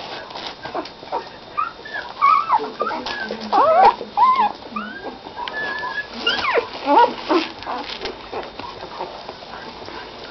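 Week-old Doberman puppies squeaking and whimpering: many short, high cries that bend up and down in pitch and overlap, thickest through the middle.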